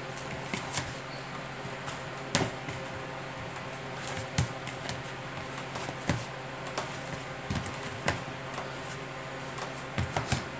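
Bread dough being kneaded by hand in a plastic bowl: irregular soft knocks and thumps as the dough is pressed and turned against the bowl, over a steady background hum.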